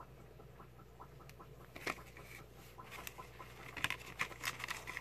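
A hand reaching into a clear plastic deli cup lined with paper towel to pick up a hatchling painted turtle: crinkling paper and sharp clicks of the handled plastic. The clicks are sparse at first and thicken into a quick cluster, the loudest part, about four seconds in.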